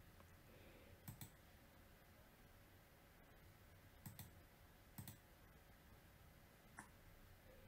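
Computer mouse clicking, faint: quick pairs of clicks about one, four and five seconds in, and one more near the end, over faint room hiss.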